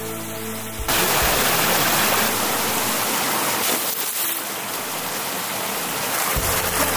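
Stream water rushing and splashing over split bamboo strips laid in it to be rinsed, starting abruptly about a second in, with soft background music.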